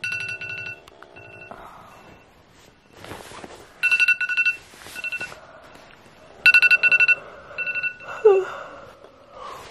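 iPhone alarm ringing: quick runs of high beeps repeating about every two and a half seconds, with some rustling, until it is switched off near the end. A brief falling-pitch sound follows just as it stops.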